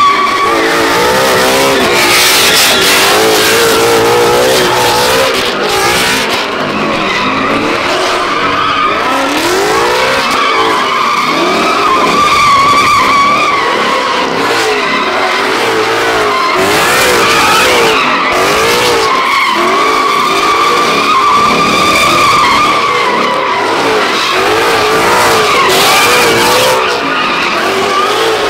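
A car doing a sustained burnout with its tires squealing continuously, while the engine revs rise and fall again and again as the throttle is worked.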